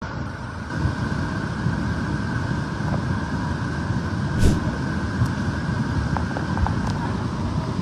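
Steady rushing noise of heavy rain and floodwater, with one sharp knock about four and a half seconds in.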